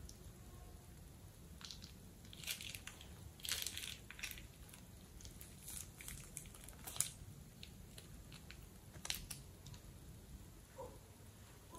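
Plastic piping bag crinkling and crackling in the hand as yellow slime is squeezed out of it: irregular small clicks and crackles, with a few louder ones scattered through.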